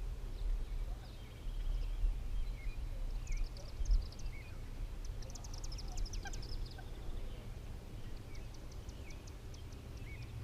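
Birds chirping and calling with short, high notes and little rising and falling whistles, scattered throughout, over a steady low rumble.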